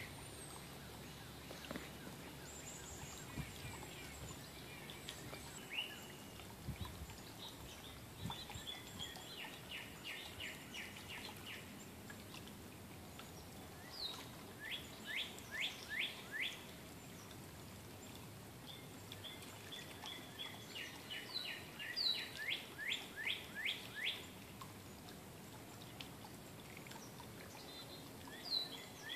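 A songbird singing a phrase of quick, clear, falling notes, each run lasting two to four seconds and repeated about four times with pauses of a few seconds, over faint steady outdoor background noise.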